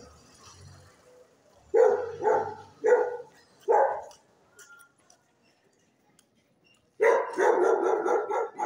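Dogs barking: four separate barks about two seconds in, then a quick run of barks near the end.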